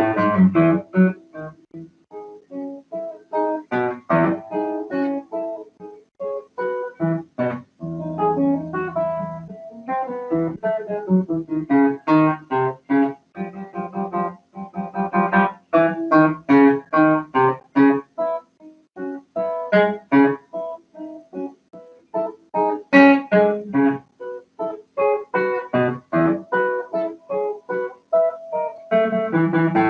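Classical nylon-string guitar played fingerstyle: a solo piece of quick single plucked notes, with fuller chords struck now and then, including one near the end.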